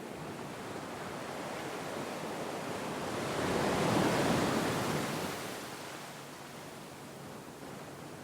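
Sea waves washing onto a shore: a single wave swells to its loudest about four seconds in, then draws back into a steady hiss of surf.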